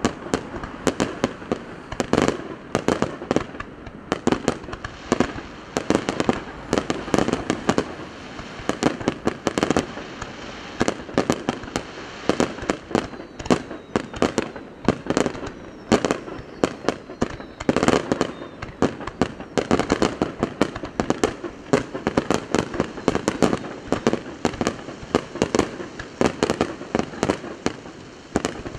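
Aerial fireworks bursting in a rapid, continuous barrage: many sharp bangs every second, with crackle between them.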